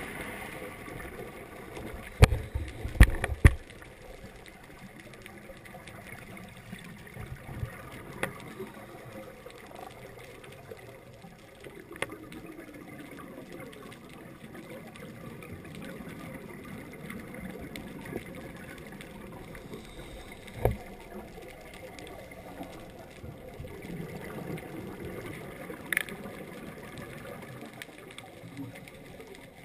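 Underwater ambience picked up through a GoPro's waterproof housing: a low, steady wash of noise. It is broken by sharp knocks, three close together about two to three and a half seconds in and single ones about 12, 21 and 26 seconds in.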